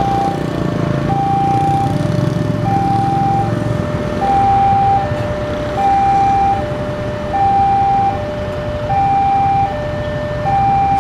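Railway level-crossing alarm sounding a steady two-tone warning, a higher tone and a lower tone alternating, about one pair every second and a half. Underneath is the low running of the waiting motorcycles' and cars' engines.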